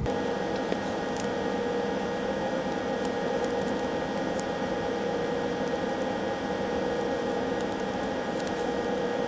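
Steady electrical-sounding hum with a few faint clicks, level throughout.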